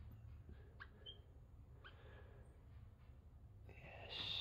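Tufted capuchin monkey giving a few faint, short rising peeps, followed near the end by a brief louder rustling hiss.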